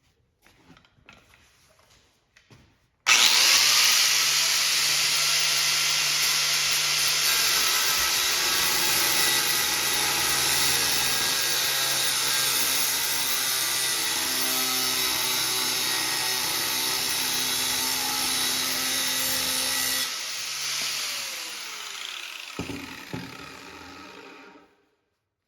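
An electric power tool cutting metal, taking a piece off the worn strut-to-sway-bar link. It starts abruptly about three seconds in and runs steadily at full speed. Near twenty seconds it drops off, then winds down with a falling whine and stops just before the end.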